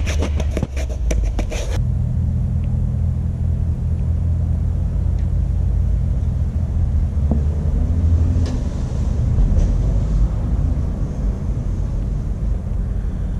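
About two seconds of quick scraping strokes, sandpaper worked by hand inside a rubber fin foot pocket. Then a steady, loud low rumble, a machine-like drone with no clear source, fills the rest.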